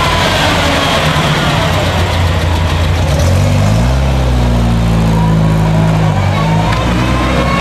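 Ford Escort rally car's engine running at low revs, then revving up as it pulls away about three seconds in. The engine holds a higher note and drops back near the end.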